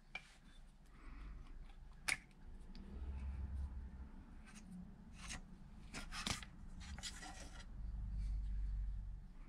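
Workshop handling sounds from hand work on small outboard-pump parts: scattered light clicks and taps, a few sharper ones, with rubbing and low bumps between.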